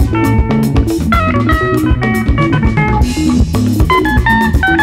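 Live band playing: a drum kit struck with sticks, an electric bass and a guitar picking a running melody, with a cymbal crash about three seconds in.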